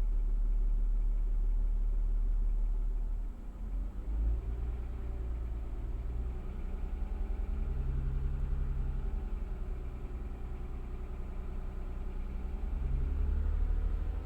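Toyota 2GR-FE 3.5-litre V6 engine running, its speed changing about four seconds in. It carries a knocking sound around 1400 rpm whose source the owner cannot identify.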